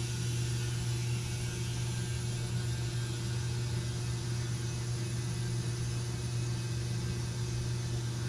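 A machine running steadily: a low, even hum with a hiss over it, unchanging throughout.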